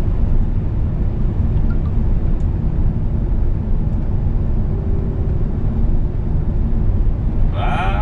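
Steady engine and road noise inside the cab of a Scania S500 truck driving on a snowy highway, a deep continuous rumble.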